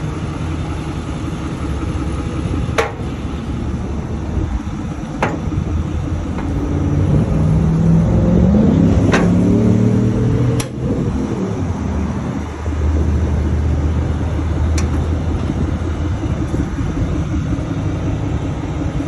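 Truck engine idling with a steady low rumble. It revs up and back down about halfway through. A few sharp clicks are heard, about five in all.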